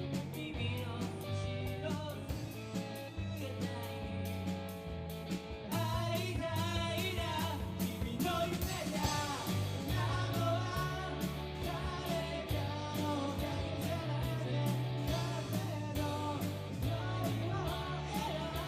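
A live rock band playing, with drums keeping a steady beat, a bass line and guitar; a singer comes in about six seconds in.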